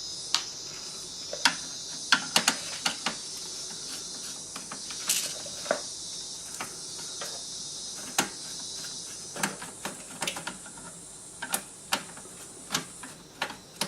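Screwdriver backing out a motherboard screw: irregular small metallic clicks and scrapes, a couple of dozen over the stretch, over a steady high hiss.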